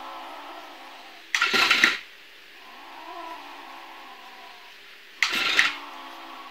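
Recorded 'evil meow' cat sound played from a speaker hidden in a box: two short, harsh yowls, about a second in and again some four seconds later, with a quieter, lower drawn-out cry between them.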